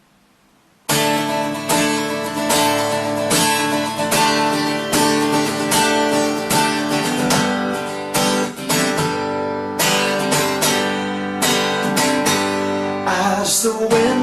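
Acoustic guitar strumming chords in a steady rhythm, starting suddenly about a second in after near silence.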